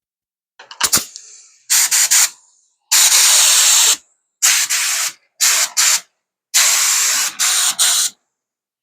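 Harbor Freight paint spray gun spraying automotive paint on compressed air at a high pressure, in about six short trigger pulls of hiss, the longest about a second and a half.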